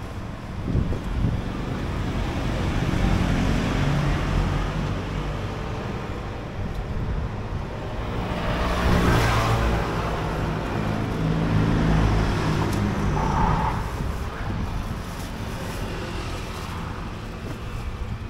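Road traffic: motor vehicles driving past, their engines rising and falling, loudest as one passes close about halfway through.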